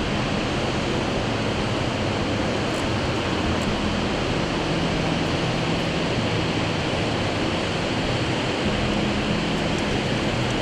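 Steady rushing of water from a river weir, with a low hum that comes and goes underneath.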